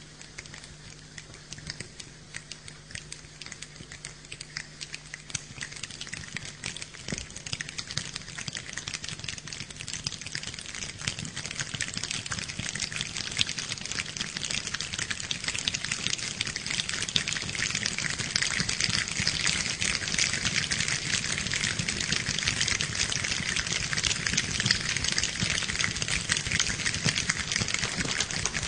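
A large choir imitating rain with their hands: a dense patter of many tiny clicks that grows steadily louder and fuller, like a light shower building into heavy rain.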